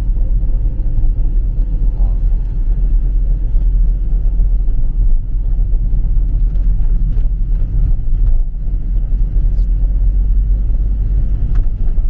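Car driving along: a steady low rumble of engine and road noise.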